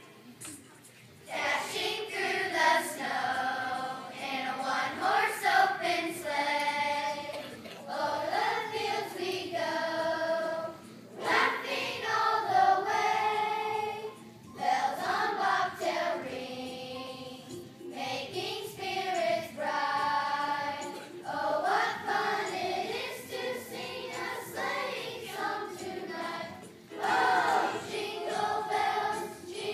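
Children's choir singing in unison, coming in about a second in and pausing briefly between phrases.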